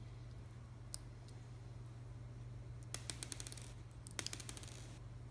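Small plastic clicks as the two halves of a Cheerson CX-10 nano quadcopter's plastic shell are prised apart by hand: one sharp click about a second in, then two short runs of rapid clicks around three and four seconds in.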